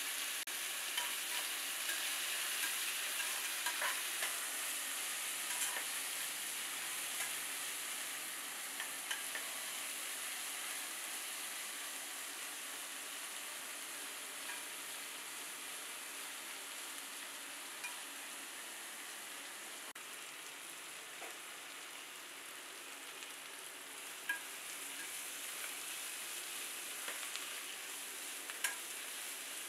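Sliced onions sizzling in hot oil in a pan: a steady hiss, with a spatula stirring them and a few short clicks of it against the pan, several near the end.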